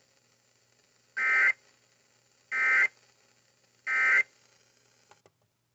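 Emergency Alert System end-of-message signal: three short, identical bursts of SAME digital data tones, about a second and a third apart, marking the end of the warning broadcast.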